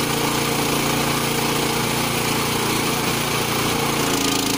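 Hydraulic log splitter's motor and pump running steadily, its tone shifting about four seconds in.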